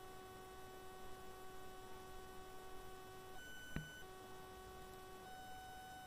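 Faint, steady electrical hum made of several thin tones, with a single short click a little past halfway.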